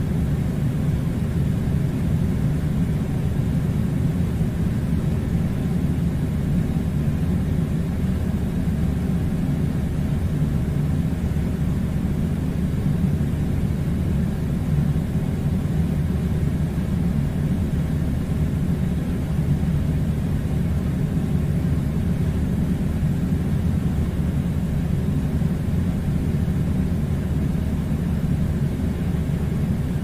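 Steady low rumbling drone of an air conditioner running, unchanging in pitch and level.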